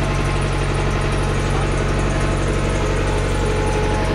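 Hitachi UH035 excavator's diesel engine idling steadily.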